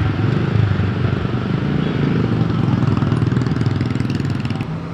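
A large bus's diesel engine runs at low speed as the bus pulls into a roadside stop, with motorcycle engines passing close by.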